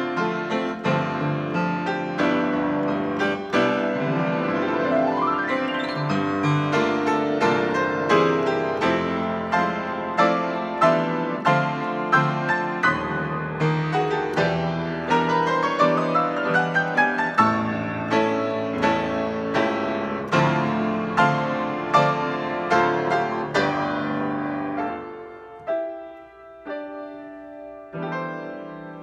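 Solo grand piano playing, with quick rising runs a few seconds in and again around the middle. Near the end the playing thins to a few soft notes left ringing.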